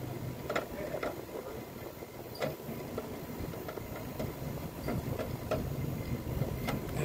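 Air-conditioner outdoor unit's compressor running with a low, steady hum, with irregular light clicks and knocks about once a second on top.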